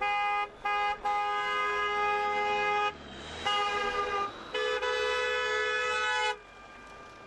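Car horns honking in a run of five blasts: three short toots, then two held for about two seconds each. The honking stops about a second before the end.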